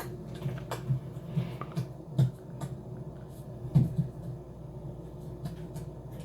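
Film sound effects: a run of light clicks and taps, most of them in the first few seconds with a louder knock just before the middle, over a steady low hum.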